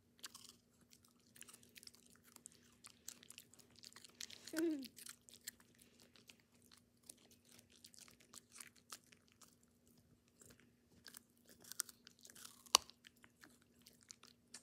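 A dog crunching and chewing a raw carrot: irregular crisp crunches, with one sharper crack near the end. A brief falling voice-like sound comes about four and a half seconds in.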